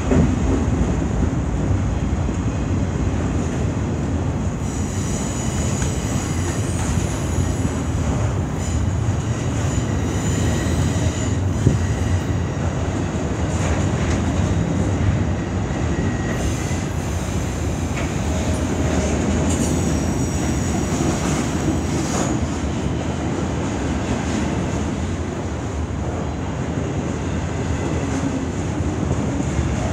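CN freight train of autorack cars rolling past with a steady rumble of steel wheels on rail. A high-pitched wheel squeal comes and goes from about five seconds in until about twenty-two seconds in.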